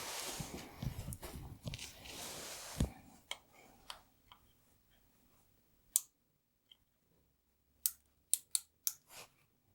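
A rustling, scraping noise for about three seconds, then scattered sharp clicks, several in quick succession near the end: a micrometer and a steel part being handled while the part is measured.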